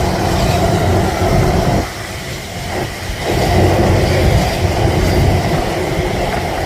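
A passenger train running close by on the line, with steady wheel-on-rail and traction noise that dips briefly about two seconds in before coming back loud.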